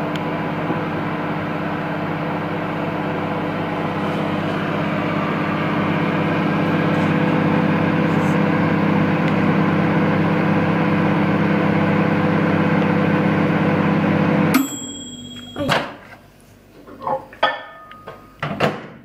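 Microwave oven running on high with a steady electric hum. It cuts off sharply about 15 seconds in with a short high beep, followed by a few clicks as the door is opened.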